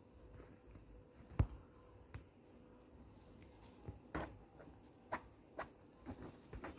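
Kittens playing at a hoodie drawstring on a person's lap: faint scattered taps, scuffs and rustles of paws and claws on fabric, with one sharper thump about a second and a half in.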